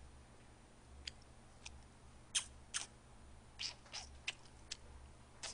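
A person chewing food close to a microphone: a scatter of faint, irregular crunches and mouth clicks.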